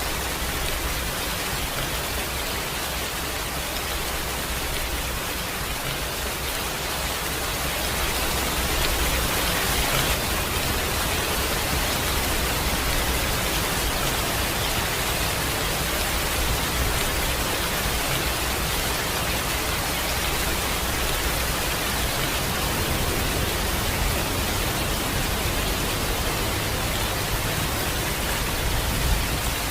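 Steady rainfall, a dense even hiss with a low rumble beneath it, swelling slightly about a quarter of the way through.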